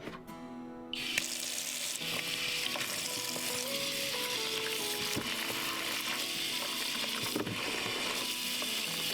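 A steady, sizzling hiss that starts abruptly about a second in, over soft background music.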